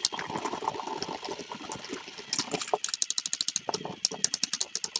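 Battery-powered plastic toy train running along its track with a webcam riding on it: a small motor whirring, then, from a bit under halfway through, a fast even run of clicks, about eight a second, as it rattles along.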